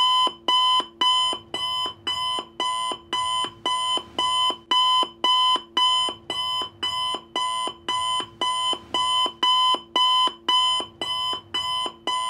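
Countdown timer sound effect: a short, ringing clock-like tick repeating about twice a second, marking the 10 seconds given to answer.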